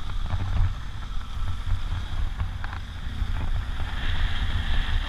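BMW R1200 GS Adventure boxer-twin engine running while the bike rides a dirt track, with wind buffeting the microphone and a few scattered ticks; the hiss grows brighter about four seconds in.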